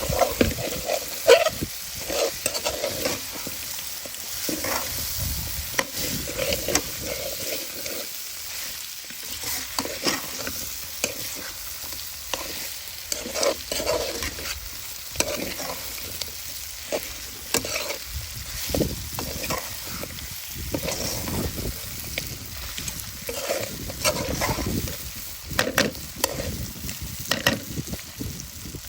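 Duck pieces sizzling as they fry in hot oil, stirred with a utensil that scrapes and knocks against the pot again and again.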